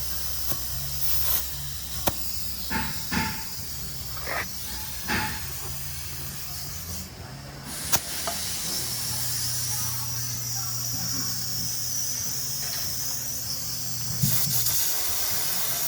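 Compressed air hissing during tire work at a tire shop, over a steady low machine hum, with a few sharp metallic clicks. The hiss grows steadier and stronger about halfway through.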